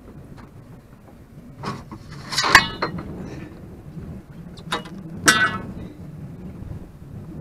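A freshly caught red drum thrashing on a boat deck while it is measured. There are a few sharp knocks and two loud rattling clatters, about two and a half seconds in and again near five seconds.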